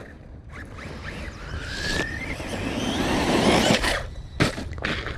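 Traxxas Sledge brushless electric RC monster truck driving hard on dirt: a short rising motor whine and the rush of tires on dirt build to a peak about three and a half seconds in. Then come a few sharp knocks near the end as the truck lands off a jump.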